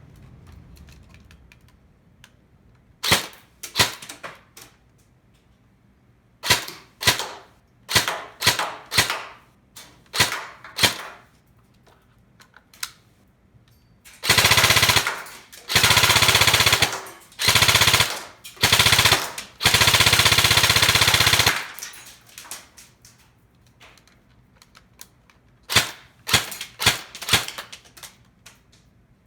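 Airsoft gun firing: sharp single shots, then several long bursts of rapid fire of one to two seconds each, then single shots again near the end.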